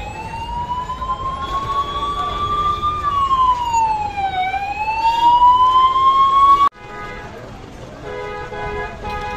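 An emergency vehicle's siren wailing, its pitch slowly falling and rising, growing louder until it cuts off abruptly about two-thirds of the way in. After a short lull a vehicle horn sounds near the end.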